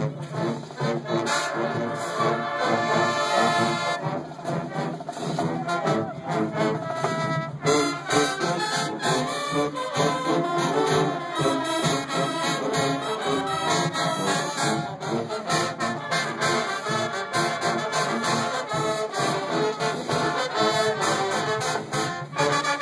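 High school marching band playing a stand tune in the bleachers, its trumpets and trombones carrying the melody, with a steady beat of percussion hits coming in strongly about seven seconds in.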